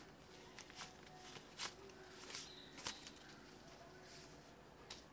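Faint, scattered sharp clicks and snaps at irregular intervals over quiet room tone.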